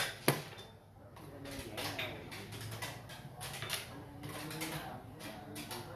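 Two sharp clacks about a third of a second apart as a xiangqi move is made: a piece set down on the wooden board and the chess clock's button pressed. Faint murmured voices and light rustling follow.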